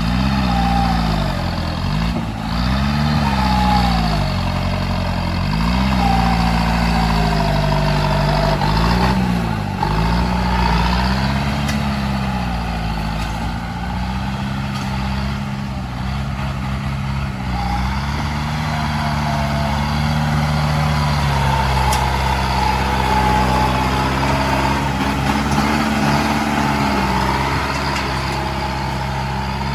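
Heavy diesel engine of earth-moving machinery running under changing load, its pitch rising and falling every couple of seconds, with a higher wavering whine over it.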